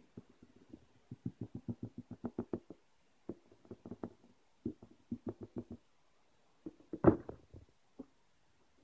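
Fingers tapping quickly on the side of a cardboard box, in runs of rapid taps about seven a second with short pauses between them. There is a single louder thump about seven seconds in.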